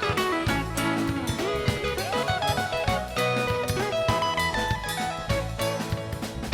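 Gospel band playing an instrumental passage between sung lines: guitar over drum kit and bass, with a steady beat.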